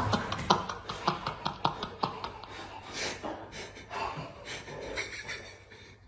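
Breathy, panting laughter in quick pulses that grows fainter and dies away near the end.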